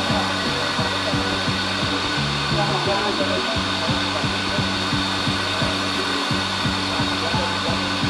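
Waterfall pouring onto rocks: a loud, steady rushing of falling water, with background music with a regular beat underneath.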